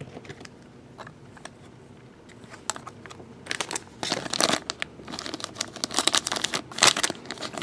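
A few light clicks, then from about three and a half seconds in, clear plastic shrink wrap crinkling and tearing as it is pulled off a pack of trading cards, louder toward the end.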